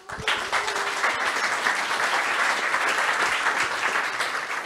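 Audience applauding, starting suddenly and thinning out near the end.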